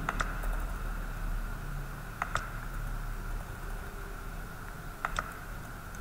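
Three quick double clicks of a computer mouse, spread across a few seconds, over a steady background hum.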